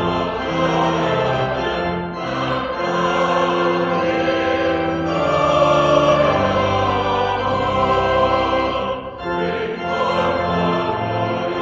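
A church choir and congregation singing a hymn with pipe organ accompaniment, in held notes, with a short break between phrases about nine seconds in.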